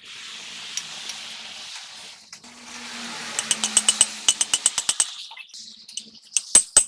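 Steel being struck repeatedly with a hammer, each blow ringing at the same pitch, about four strikes a second. The blows start about halfway through and get louder near the end, after a steady hiss.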